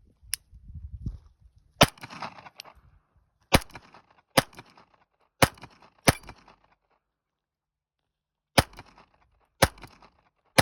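Beretta Tomcat .32 ACP pocket pistol firing a string of about eight shots at an uneven pace, with a pause of about two and a half seconds after the fifth shot.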